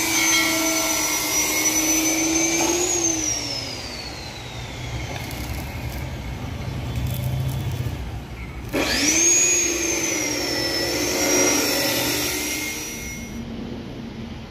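An electric angle grinder whines steadily, then is switched off about three seconds in and winds down. About nine seconds in, an abrasive chop saw starts with a sudden rising whine; its pitch sags and wavers as the disc cuts steel, and it stops shortly before the end.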